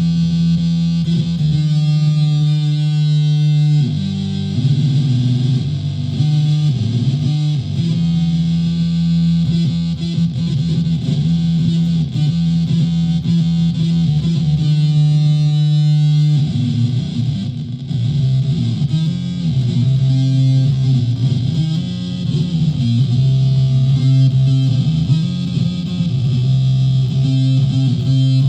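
Solid-body electric ukulele played through a home-built clone of a distortion or fuzz pedal and a PA speaker: distorted chords and single notes, held and let ring, changing every few seconds.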